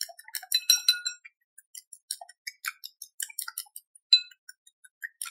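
Chopsticks beating eggs in a glass bowl, clinking against the glass with short ringing tones: a quick run of clinks in the first second, then scattered clinks.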